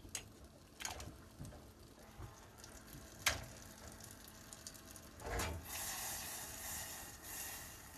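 Quiet stovetop cooking: a few light knocks as crab pieces are put into a steel pot of hot water, then, about five and a half seconds in, a hissing sizzle of butter melting in a small saucepan for about two seconds.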